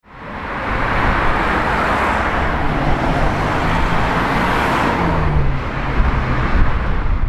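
Road traffic: cars driving past on a street, with tyre and engine noise fading in at the start and then holding steady.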